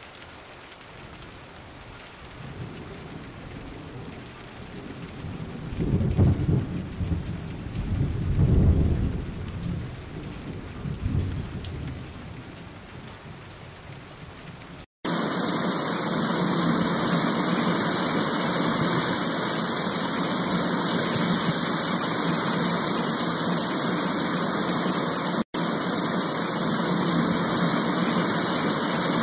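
Heavy rain in a thunderstorm: rolling rumbles of thunder swell and fade in the first half, loudest about six and eight and a half seconds in. After an abrupt cut, a loud, steady downpour hisses on the ground.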